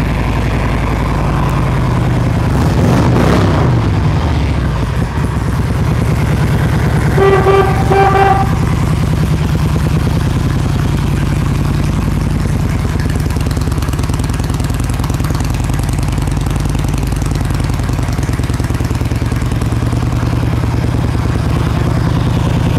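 2006 Harley-Davidson Electra Glide Ultra Classic's Twin Cam 88 V-twin idling steadily, with one throttle blip about three seconds in. The horn toots briefly about seven to eight seconds in.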